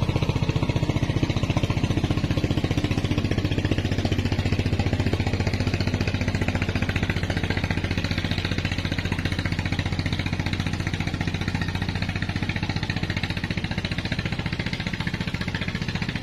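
A small engine running steadily at one unchanging speed, its firing heard as a fast, even pulse.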